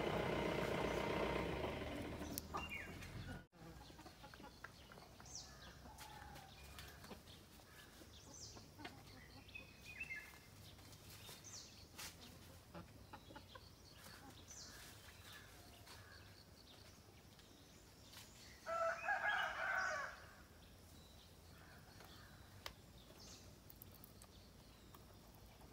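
Chicken sounds in a quiet rural yard: faint scattered bird chirps, and one loud chicken call about a second long, about three-quarters of the way through. A louder steady sound dies away in the first couple of seconds.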